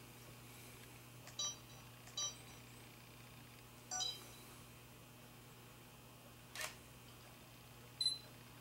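Sony Cyber-shot digital camera taking photos: three short electronic beeps in the first four seconds, a brief shutter sound a little before seven seconds in, and another short beep near the end.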